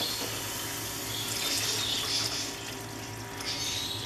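Grated carrot in ghee and melted sugar sizzling in a hot non-stick pan, with milk poured in from a cup near the end and hissing as it hits the pan.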